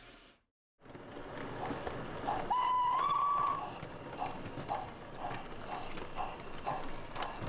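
A whistle sounds for about a second, then comes an even clopping at about two knocks a second, over a soft background hiss.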